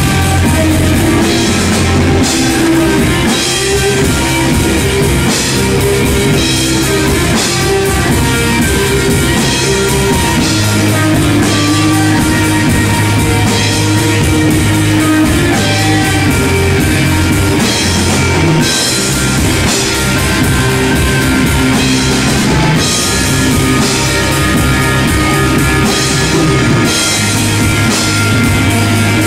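Stoner rock band playing live: electric guitar through Marshall amplifiers and a drum kit with cymbals crashing, an instrumental passage without vocals.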